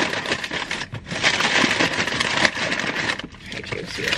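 Foil-lined paper sandwich wrapper crinkling and crackling as it is handled and peeled open, with brief pauses about one second and three seconds in.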